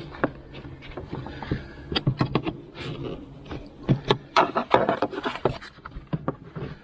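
A small metal pry bar scraping, clicking and knocking against the plastic air box and intake air tube as the tube is levered off a stubborn lip. The bursts of scraping and clicks come in spells, busiest around two seconds in and again from about four to five and a half seconds.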